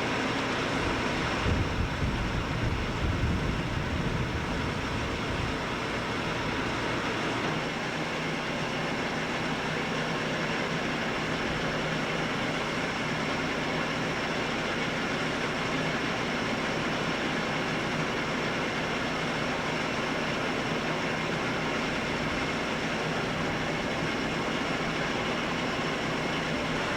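Steady drone of heavy machinery running, with a brief low rumble about two seconds in.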